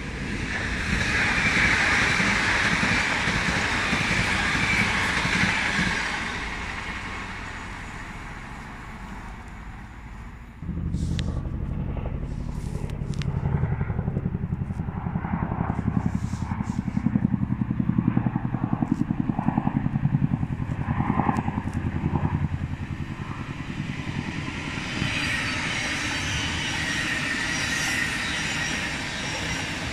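A loud rushing noise that fades out by about six seconds in. It is followed by a pulsing low rumble from a helicopter passing overhead. Near the end a Thameslink Class 700 electric train runs past the platform, its wheels on the rails making a rising hiss.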